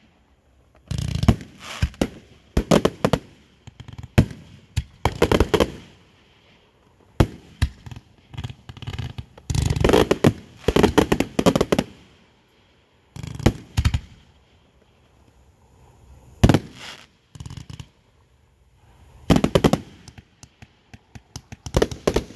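Irregular bursts of rapid, sharp pops and cracks, coming in clusters a few seconds apart with quiet gaps between.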